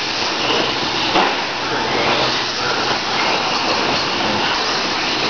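Electric radio-controlled off-road cars running on a dirt track: a steady hiss of motors, gears and tyres with faint whines that rise and fall as they speed up and slow.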